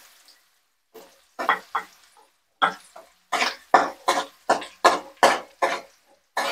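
A spatula stirring and scraping sliced onions frying in a pan, in short scraping strokes, a few at first and then about three a second from about halfway in.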